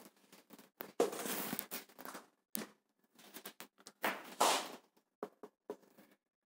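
Dry-erase marker and hand scraping on a whiteboard in two short scratchy spells, about a second in and again about four seconds in, with a few light taps between.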